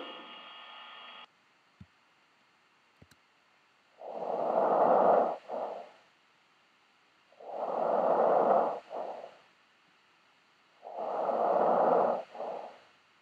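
Recorded clinical breath sounds: three breathing cycles, each a loud rushing breath about a second and a half long, then a short softer breath after a brief gap, with pauses of about two seconds between cycles.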